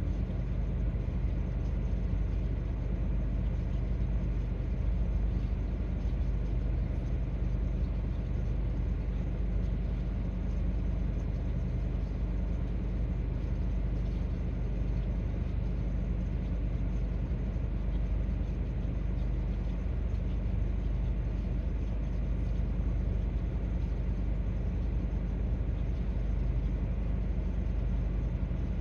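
Long intermodal freight train of double-stacked containers and trailers on flatcars rolling past, a constant low rumble heard from inside a waiting car.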